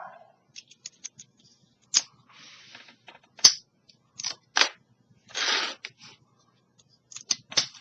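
A small Master Lock 30mm padlock worked with its key: sharp metal clicks, the loudest about three and a half seconds in and a quick run of them near the end, with two short rasping scrapes between them.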